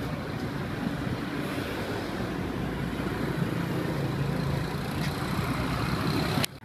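Steady street traffic noise with a motor engine running close by, cutting off suddenly near the end.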